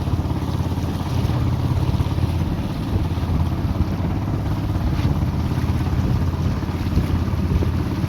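Small boat's engine running steadily, a low even drone, with wind noise on the microphone.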